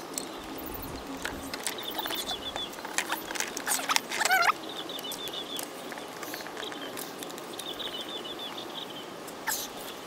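Scattered light clicks and taps from hands working the trolling motor's plastic connectors and curly cable. Birds chirp outdoors throughout: a high repeated trill comes several times, and a louder call slides down in pitch about four seconds in.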